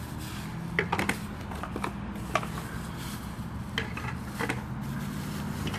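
Parts of an electric grill and its stand being unwrapped from plastic bags and set down on a table: several sharp, irregular clicks and clatters of pieces knocking together.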